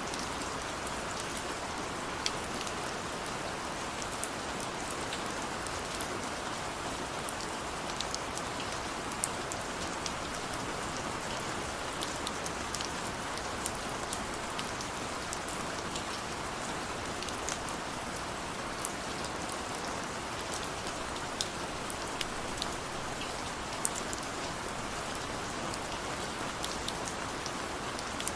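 Steady rain falling, a constant hiss with many separate drops ticking sharply on a surface.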